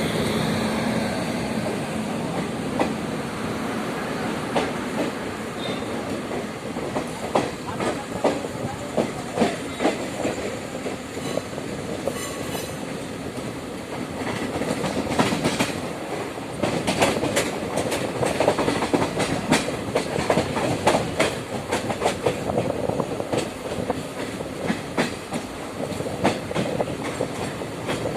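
Passenger train coaches rolling past, steel wheels clacking over the rail joints with a steady rumble; the clacks come thicker in the second half.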